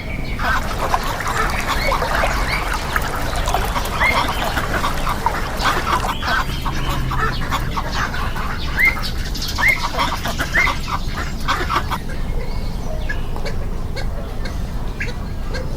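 A flock of ducks quacking: many short overlapping calls, thick for most of the stretch and thinning out near the end, over a steady low background rumble.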